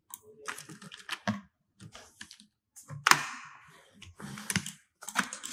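Computer keyboard keys being pressed in short irregular bursts, scattered keystrokes with the sharpest about three seconds in.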